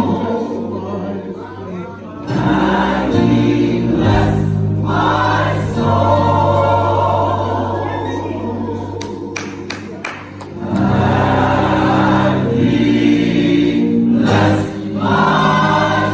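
Church gospel choir singing in full harmony, holding long sustained chords over a steady low accompaniment, swelling and easing between phrases.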